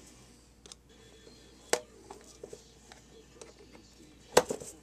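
Sharp clicks and knocks of a metal hard-drive casing and hand tools being handled on a workbench. There is one knock a little under two seconds in and a quick cluster of louder clicks near the end, with faint ticks between.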